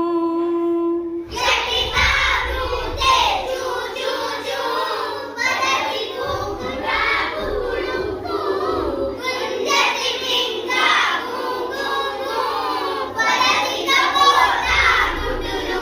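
A single held sung note, then from about a second in a group of children singing a Sanskrit children's song together, repeating its lines.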